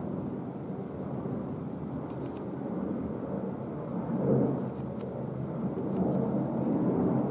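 Steady low rumbling outdoor background noise, swelling about four seconds in and again near the end, with a few faint clicks.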